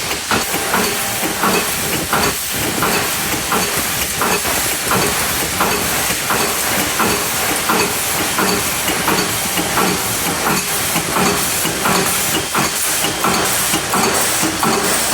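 Head turning machine for small arms cartridge cases running, with a steady hiss and a regular clicking about two to three times a second.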